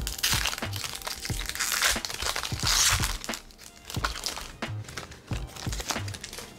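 Foil booster pack wrapper crinkling in several bursts as the pack is opened and handled, over background music with a regular low beat.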